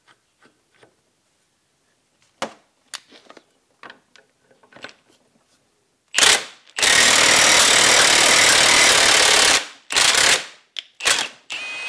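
Cordless impact wrench hammering the screw of a ball joint press, driving a rusted U-joint out through the axle shaft yoke. A few light metal clicks while the press is set up are followed by a short burst, one steady run of about three seconds, and two brief bursts near the end.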